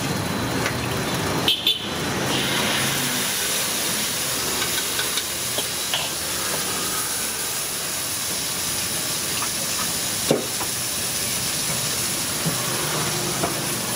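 Food frying in a wok over a gas burner: a steady hiss with a few short, sharp clicks.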